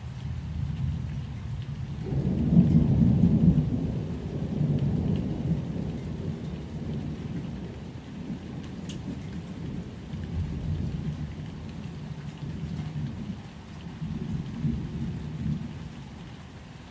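Steady rain with a long rumble of thunder that swells about two seconds in and rolls on, rising and falling several times.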